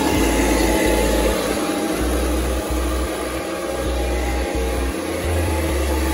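Taigen 1/16 RC T-34/85 tank driving on a wooden floor: its electric drive motors and gearboxes whir steadily while the tracks run over the boards.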